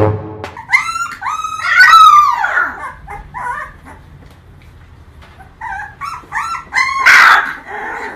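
Young puppies whining and yipping: several quick high-pitched calls about a second in, more near the end, and a couple of rougher cries at the close.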